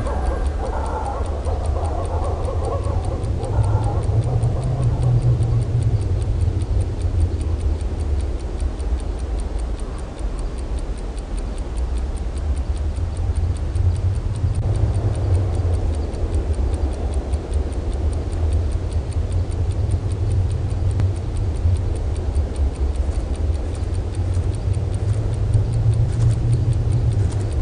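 Film soundtrack: steady, rapid ticking over a continuous low drone.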